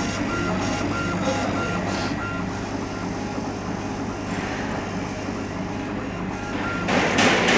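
Acctek AKJ6040 CO2 laser engraver raster-engraving: the laser head's stepper motors whir back and forth with a short repeating tone about three times a second, over the machine's steady hum. A louder hissing noise comes in near the end.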